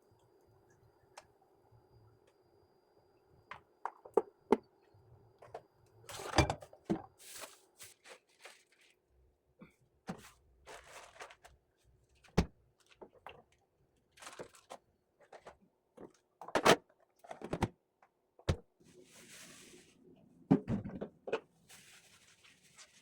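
Household objects being handled: a dozen or so sharp knocks and clacks at uneven intervals, with short rustling or scraping sounds between them, over a faint steady hum that drops away about six seconds in.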